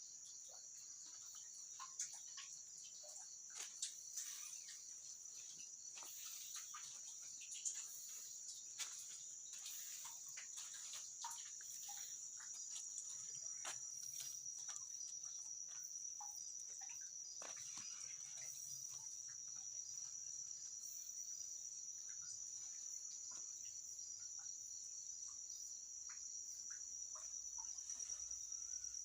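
Crickets chirring steadily in a high, finely pulsed night chorus, with scattered faint clicks and rustles in the first half.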